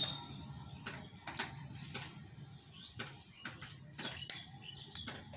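Circlip pliers fitting a circlip onto a motorcycle gearbox shaft: scattered light metal clicks and taps, the loudest about four seconds in, the click of the circlip seating in its groove.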